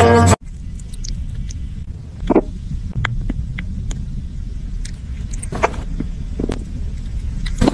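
Background music cuts off just after the start, followed by a steady low rumble of a kitten purring close to the microphone. A few faint short clicks come from it sucking its paw.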